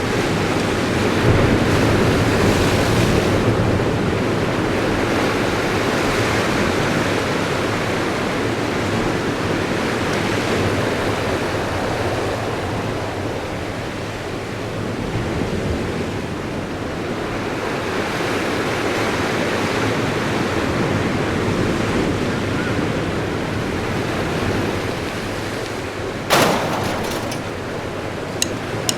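Ocean waves surging and washing in, the rush swelling and easing every few seconds, with wind on the microphone. A brief sharp noise near the end.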